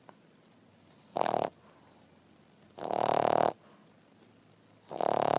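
French bulldog snoring: three snores about two seconds apart, the middle one the longest, the last still going at the end.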